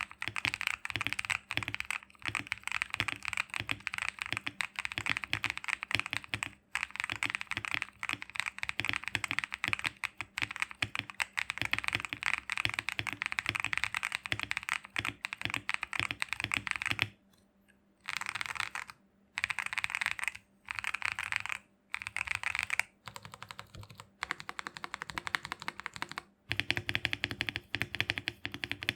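Fast, continuous typing on a GMK67 mechanical keyboard with Akko Ocean Blue switches, a rapid stream of key clacks. About two-thirds in the typing stops briefly, then comes in short bursts with gaps. Near the end the clacks sound deeper.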